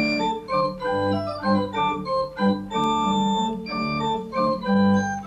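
Pipe organ playing on a Spitzgedackt stop combined with a one-foot Oktave: a moving line of short notes over held lower notes.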